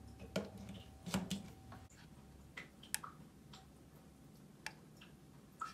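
Faint, scattered clicks and taps as a hair straightener's plug is pushed into a wall outlet and the buttons on its digital control panel are pressed.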